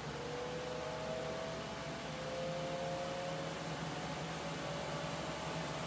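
Ninja Foodi Smart Grill XL running with its lid closed: its fan gives a steady whir and hum, with a faint tone that slowly rises in pitch.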